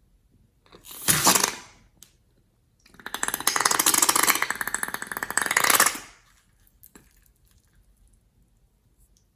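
Slime being squeezed and worked by hand, giving crackly, sticky squelching: a short burst about a second in, then a longer one of about three seconds, and a single faint click later.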